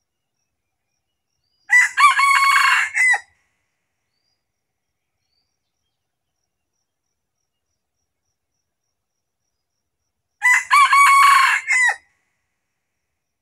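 A red junglefowl rooster crowing twice, loud and close, each crow short, about a second and a half, the second one roughly nine seconds after the first.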